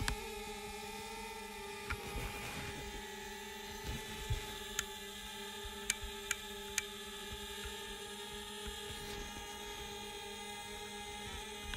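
DJI Spark quadcopter's motors and propellers whining steadily in flight, a buzzing hum with a slightly wavering pitch, with a few faint clicks.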